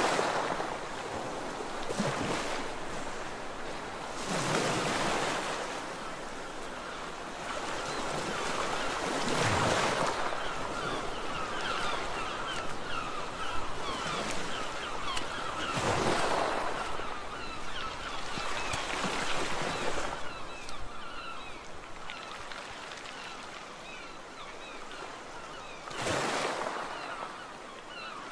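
Sea waves breaking on a beach: a steady wash of surf that swells into a louder break every few seconds, about seven times.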